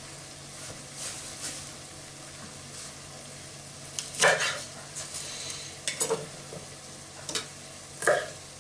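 Chef's knife chopping green onions on a wooden cutting board: a handful of sharp chops at irregular spacing, the loudest about four seconds in. Under them runs a steady sizzle of food frying in the pan.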